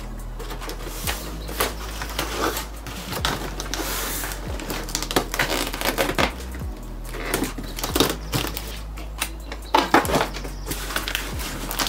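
Cardboard box being packed and taped shut: irregular rustling, crinkling and knocking of cardboard, packing tape and bottles being handled, with music underneath.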